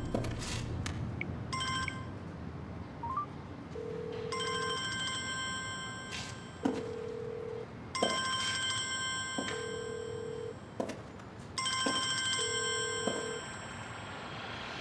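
Phone ringtone ringing over and over: a repeating electronic pattern of a high chord of tones alternating with a lower single tone, recurring about every three seconds, with a few knocks in between.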